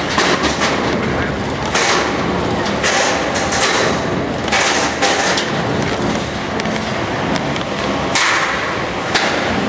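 Small combat robots ramming each other and the arena wall in a match: repeated sharp thumps and knocks, roughly one a second, over a steady background din.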